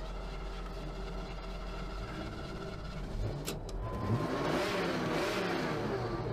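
Ford Mustang's engine heard from inside the cabin, running steadily, then revved from about three and a half seconds in, its pitch swinging up and down several times. A single sharp click just before the revving starts.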